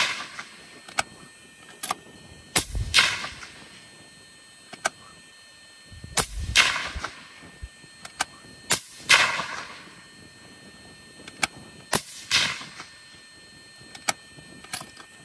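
Five rifle shots from a bolt-action 25 Creedmoor, one about every three seconds, each a sharp crack followed by a short echoing tail, with lighter clicks between the shots.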